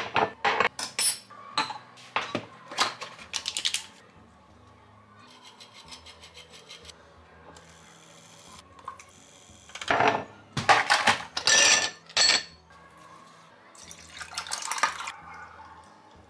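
Clatter of hard objects being handled: bursts of quick clinks and knocks in the first few seconds, again from about ten to twelve seconds, and once more near the end.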